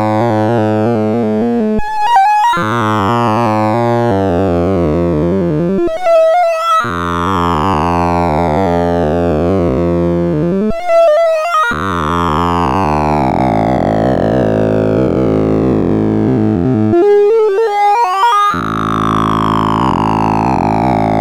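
Computer-generated beeps from a 'Sound of Sorting' program, each array comparison played as a pitch, run fast so the tones blur into dense buzzing chords. Several sort runs follow one another, each ending in a quick rising sweep, the program's final check pass over the sorted array, four times in all.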